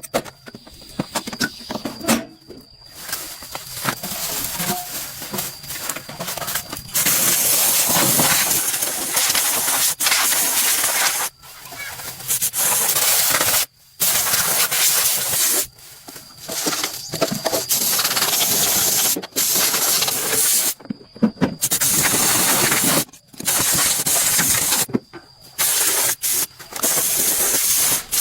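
Repeated bursts of hissing spray under pressure, each lasting from about a second to several seconds and cutting off sharply.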